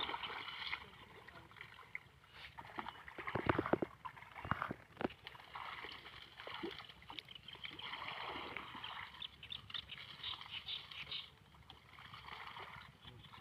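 Water sloshing and splashing around a small boat, with louder splashes about three and a half seconds in and again near five seconds.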